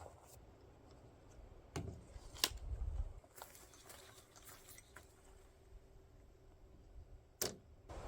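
A few sharp clicks and knocks, two close together about two seconds in and one near the end, over a faint steady hum.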